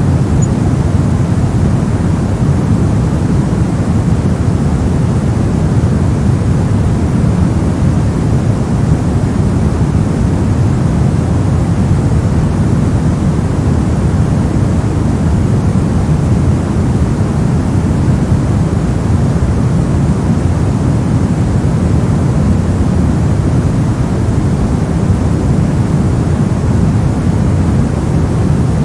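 Continuous synthetic white noise: a steady, unchanging rushing hiss, strongest in the low end.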